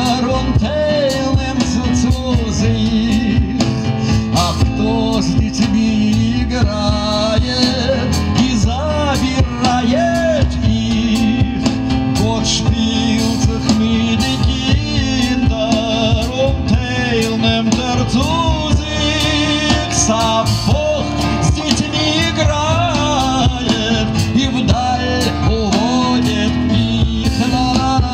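Live band music: plucked upright double bass, keyboard and cajon playing a steady groove, with a wavering melody line on top.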